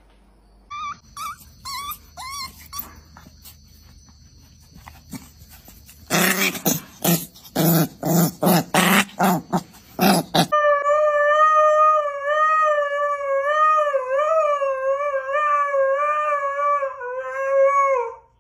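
Dogs vocalising: a few short, high yelps about a second in, then a fast run of loud, rough growling barks from about six seconds, then a single long, wavering howl from a husky lasting the last eight seconds, cutting off just before the end.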